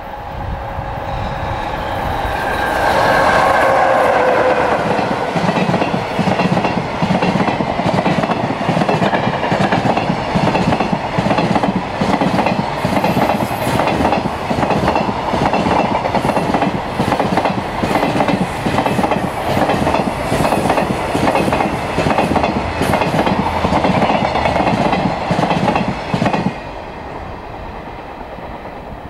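JR Freight container train passing, hauled by an EF66 electric locomotive: the locomotive goes by a few seconds in with a steady tone, loudest of all. Then comes a long steady clickety-clack of container wagon wheels over the rail joints, which stops suddenly near the end as the last wagon passes.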